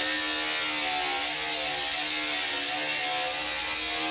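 Cordless angle grinder cutting through the sheet-metal cover of a distribution board: a loud, steady, harsh grinding.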